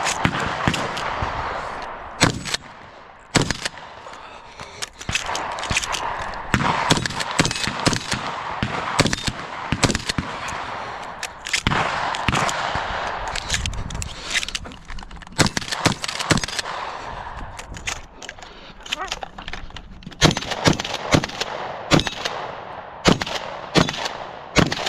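Shotgun fired many times in irregular strings: some shots come in quick succession, others a second or more apart. A hissing noise runs between the shots.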